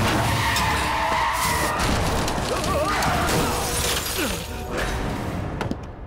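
Action-film soundtrack: background score mixed with crashing and shattering impact effects, dropping away near the end.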